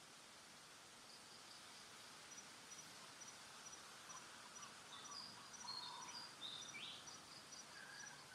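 Faint outdoor ambience: an insect chirping at a steady rate of about two to three short high pips a second, with a few short bird chirps, one falling in pitch, in the second half.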